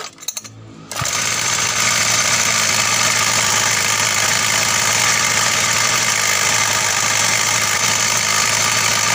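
Small two-stroke mini-bike engine pull-started, catching about a second in and then idling steadily. A light metallic jingle rides on it, from the pull-starter's centrifugal pawls rattling against the flywheel fan as they bounce with the uneven engine rotation.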